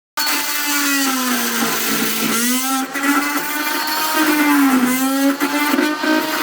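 Handheld electric power tool cutting under load, a loud motor whine over a grinding hiss, its pitch dipping and recovering twice as the tool bites into the cut.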